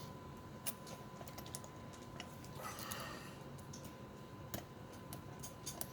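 Faint, irregular small clicks and a brief scrape of a lock pick working the pins inside a lock cylinder under tension, as the picker sets a binding serrated pin.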